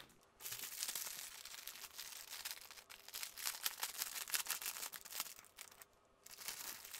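Clear plastic wrap around a bundle of diamond-painting drill bags crinkling and crackling as hands handle it and pick it open, with a brief lull about six seconds in.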